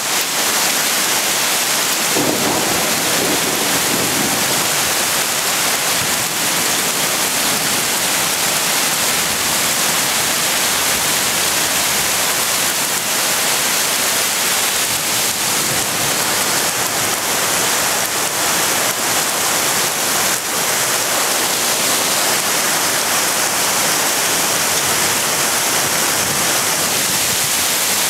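Hail and rain pelting down in a loud, steady hiss. A rumble of thunder comes in about two seconds in and fades a couple of seconds later.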